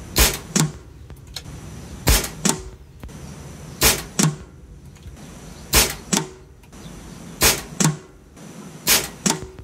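Air Arms XTi-50 pre-charged pneumatic air rifle firing .177 pellets: six shots about every 1.8 s, each a sharp crack followed about a third of a second later by a second, quieter knock.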